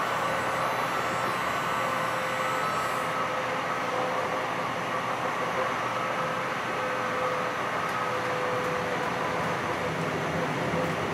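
Light rail car running along the track, heard from inside the passenger cabin: a steady rumble of wheels on rail with a thin, steady whine over it.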